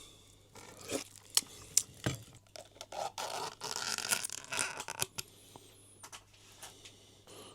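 Close handling and eating noises from a takeaway meal: scattered clicks, scrapes and crackles, busiest about halfway through.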